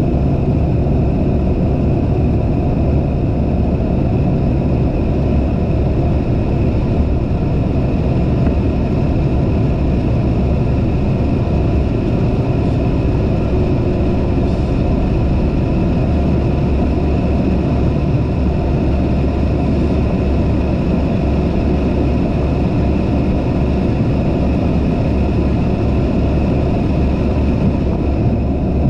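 Steady engine and airflow drone heard inside a small aircraft's cockpit during the landing rollout, with the engine at low power as the aircraft slows and turns off the runway onto a taxiway. The drone holds at one even level and pitch throughout.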